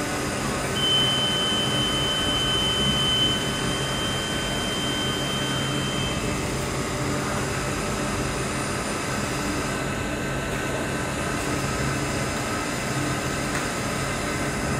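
Steady machine hum of a running wire-cut EDM machine, with a thin high whine from about a second in until about six seconds in.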